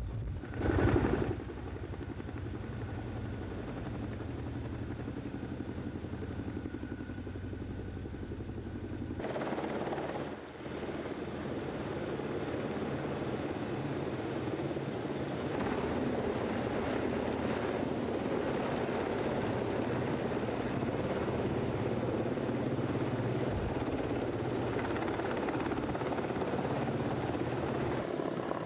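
CH-47 Chinook tandem-rotor helicopter hovering with a sling load, its rotors making a continuous heavy noise. There is a brief louder swell about a second in, and the sound changes abruptly at about nine seconds from a deep rumble to a brighter, fuller noise.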